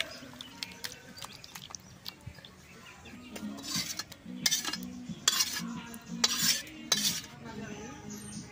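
A thick chicken curry being scraped out of a metal wok onto a plate. Light clinks come first, then about five loud scrapes against the pan in the middle.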